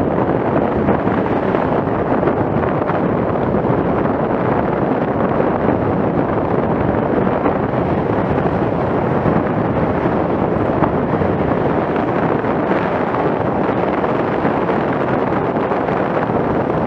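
Steady wind noise buffeting the microphone of a camera on a moving bicycle, with road rumble underneath.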